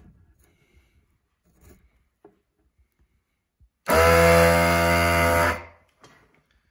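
Vacuum desoldering gun's built-in suction pump running for about a second and a half, a steady low hum that starts abruptly about four seconds in and then fades out. The trigger has been pulled to suck molten solder off a header-pin joint.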